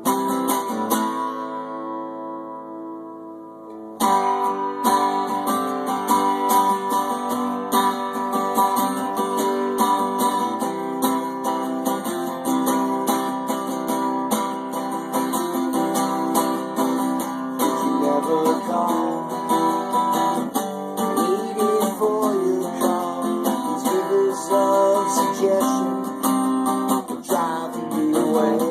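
Guitar strummed in chords: a chord rings out and fades, then steady strumming comes back in loudly about four seconds in and carries on.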